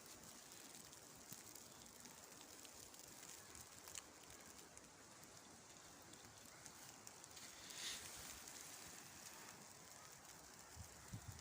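Near silence: a faint steady hiss with a few light ticks and a soft swell near the end.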